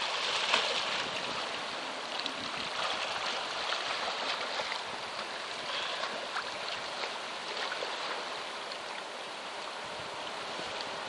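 Water splashing and sloshing from a snorkeler's fin kicks at the surface, with many small splashes and drips throughout. It is loudest in the first second or so and then settles to a steadier slosh.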